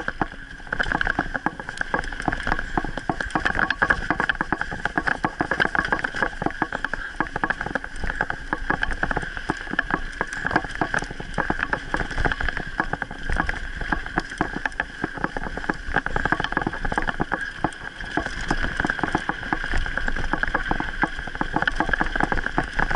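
Mountain bike rolling fast down a bumpy dirt singletrack: a steady high buzz with a dense clatter of small knocks and rattles as the bike rides over the ruts.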